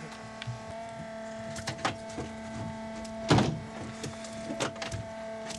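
Steady hum with scattered clicks and knocks from gear and feet on a fishing boat's deck; the loudest is a single thump a little past three seconds in.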